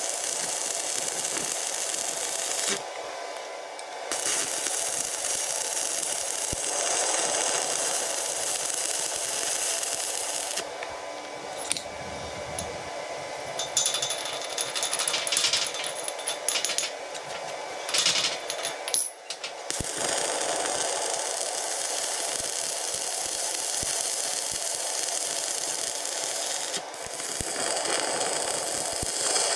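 Stick (arc) welding: the electrode's arc crackles and hisses steadily as steel bushing bosses are welded onto an excavator stick. It stops briefly near the start, then for about ten seconds in the middle, when only a few knocks and clatters are heard, and it resumes afterwards.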